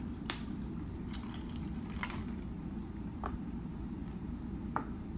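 Steady low room hum with a handful of faint, short clicks, about one a second, from a plastic water bottle being handled and drunk from.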